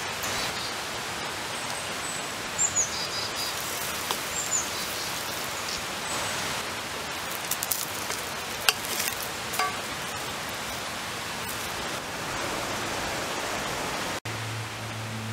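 A steady rushing hiss, like running water, with a few short high bird chirps about three and four and a half seconds in. A few light clicks and taps come about eight to ten seconds in, as a wooden spatula works bread in a frying pan over a campfire.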